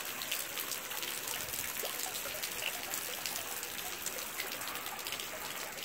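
Steady rain falling on a flooded street: a continuous hiss dotted with the ticks of individual drops.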